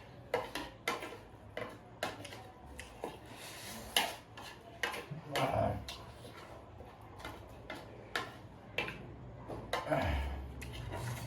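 Utensils clicking and tapping against bowls while instant noodles are eaten: many short, irregular clicks.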